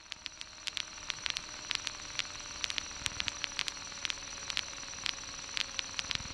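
Light aircraft engine at idle heard faintly through the cockpit intercom, a steady hum drifting slowly down in pitch after touchdown, under a hiss broken by frequent irregular static crackles.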